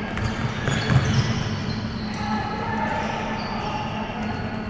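A ball bouncing on a hard indoor court floor, with many short high squeaks over a steady low hum.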